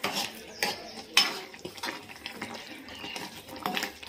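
Wooden spatula stirring and scraping thick, wet tomato curry in a kadai: a series of short, irregular scrapes, the loudest about a second in.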